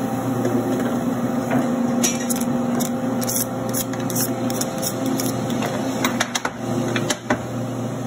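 A metalworking machine's motor hums steadily while a steel wood-chipper knife is handled in its jig on the steel table, with sharp metallic clicks and knocks from about two seconds in.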